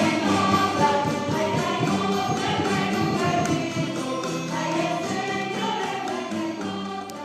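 Choral music, many voices singing together over sustained chords, growing quieter near the end.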